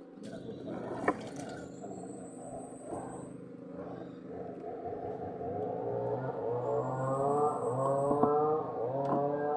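A motor engine running, its pitch rising and falling repeatedly and growing louder in the second half, with a few sharp clicks.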